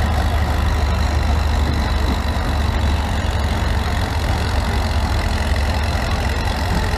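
Antique tractor engine running under load as it pulls a weight sled, heard over a steady low hum that eases a little about halfway through.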